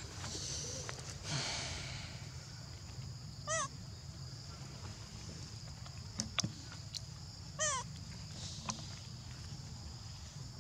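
Macaque giving two short, squeaky rising-and-falling calls about four seconds apart, over a steady high drone, with a few light clicks between them.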